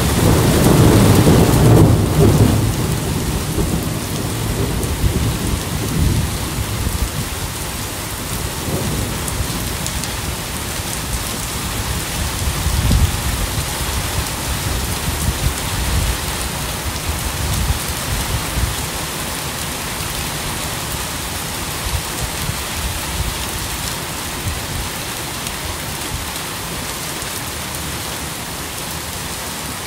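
Steady rain falling, with a loud roll of thunder in the first couple of seconds. Fainter rumbles follow and die away over the second half.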